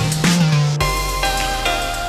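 Electronic background music. The beat stops abruptly a little under a second in, leaving held notes.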